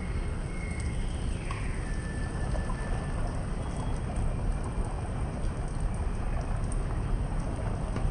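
Fine spray of water falling through the air onto garden foliage, a steady rain-like pattering hiss.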